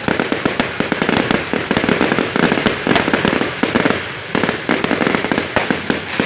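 Fireworks going off: a dense, rapid crackle of many sharp pops and bangs, with a short lull a little past four seconds in.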